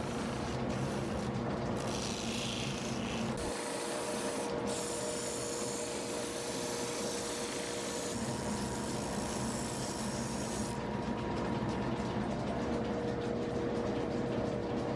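Leather heel base held against the sanding wheel of a shoe finishing machine, a steady rasping grind over the machine's motor hum as the heel is sanded level. Near the end the high sanding hiss drops out while the machine keeps running.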